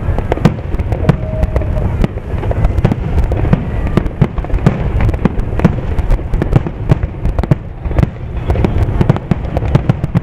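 Aerial fireworks shells bursting in quick succession: many sharp bangs, several a second, over a continuous low rumble.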